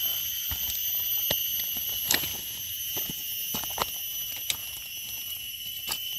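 A steady high-pitched drone of night insects, with scattered sharp clicks and rustles of a knife and fingers in dry leaf litter as a mushroom is cut free at its base.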